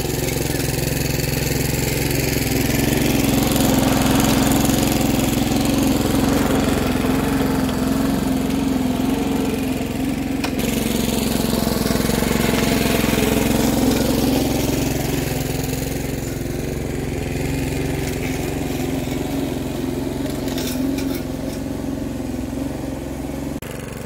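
Petrol walk-behind lawn mower running steadily while cutting grass. It grows louder as it comes near a few seconds in, then eases off during the second half as it moves away.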